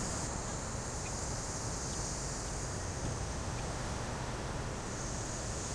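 Steady outdoor ambience with no distinct events: a low wind rumble on the microphone and a steady high hiss.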